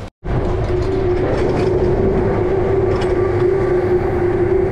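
Chairlift machinery running at the loading station: a loud, steady mechanical hum with a rattle, like rolling rail stock. It starts suddenly a moment in.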